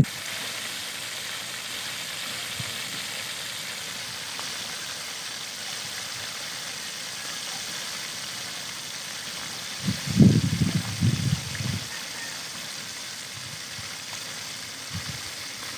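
Flour-coated chicken wings deep-frying in a wok of hot oil, a steady sizzling hiss. About ten seconds in, a short run of low thuds.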